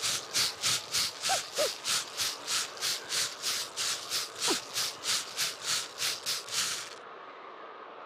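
Rapid digging in snow: even, hissy scraping strokes about three a second that stop about seven seconds in. A few short squeaky notes that drop in pitch are heard along with them.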